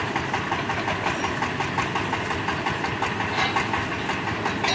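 Excavator's diesel engine running steadily with a fast, even knock.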